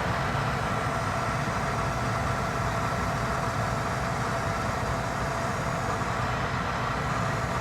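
Gas furnace draft inducer motor running steadily, a hum with a constant whine, possibly in a pre-purge before ignition.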